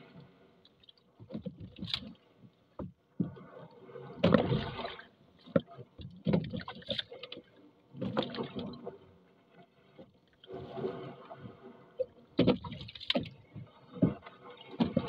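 Gill net hauled by hand from the sea into a small outrigger boat: bursts of wet splashing and dripping as each armful of net comes over the side, every second or two, with short knocks of the net and hands against the hull.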